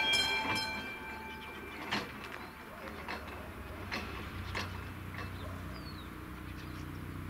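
Level-crossing warning bell of AŽD 71 crossing signals striking its last quick, ringing strokes and falling silent about a second in, once the barriers are down. After that, a quiet stretch with a few sharp clicks and a low hum that comes in around the middle.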